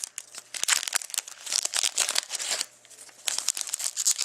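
Wrapper of a hockey trading card pack crinkling and tearing as it is opened by hand, in several rustling bunches with a brief lull partway through.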